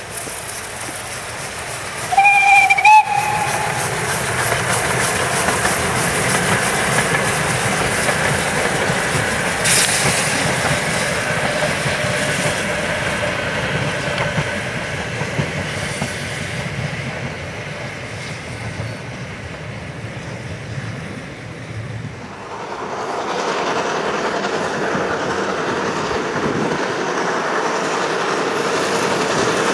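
Narrow-gauge steam locomotive BR 99 6101 gives one short steam whistle blast about two seconds in, then runs past with its train in a steady rumble and rail clatter. After a cut about 22 seconds in, the locomotive is heard louder, working hard as it comes on.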